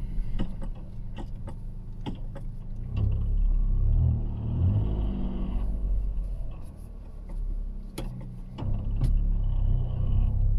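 Toyota GR Yaris's stock 1.6-litre turbocharged three-cylinder engine and seven-speed sequential gearbox heard from inside the cabin while driving. It pulls harder about three seconds in, eases off about six seconds in, and picks up again near the end. Scattered sharp clicks come through it, the strongest two near the end.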